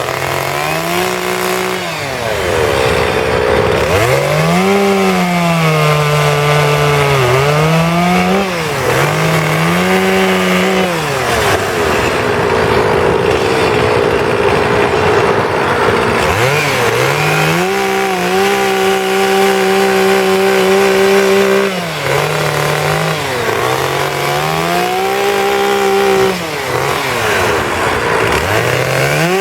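Petrol two-stroke chainsaw carving wood, the engine revving up and dropping in pitch again and again as the chain bites into the log and is eased off. In the middle there is a stretch of steady, noisy cutting.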